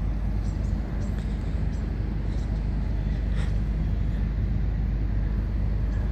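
John Deere 450C excavator's diesel engine running steadily with an even low drone.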